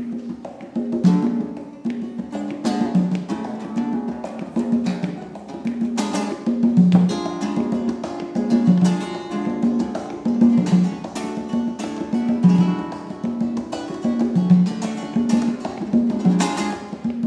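Live duo of a nylon-string Spanish guitar and a pair of congas: the guitar is strummed in sharp, quick strokes while the congas keep a steady repeating pattern of low notes alternating between the two drums.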